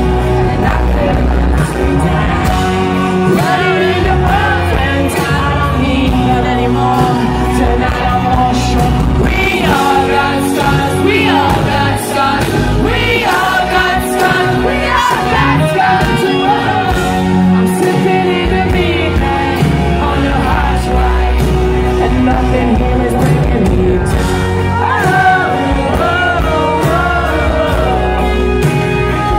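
Live pop-rock band playing loudly, with a male lead singer singing over drums and band, heard from the audience in a concert hall.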